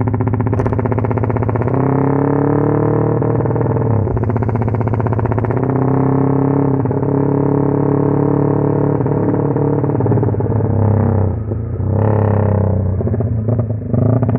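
Tuned motorcycle engine on a Juken 5 ECU's 'helicopter' setting, running with a rapid, even chopping stutter like a helicopter rotor. The sound drops out briefly twice near the end.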